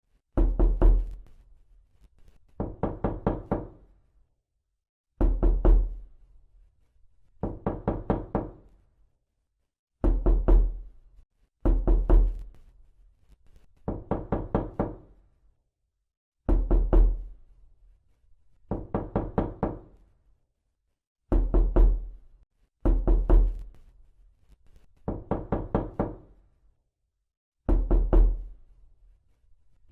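Knocking on a door: quick groups of four or five raps, repeated every two to three seconds with brief silences between. Louder groups with a heavy low thud alternate with slightly softer ones.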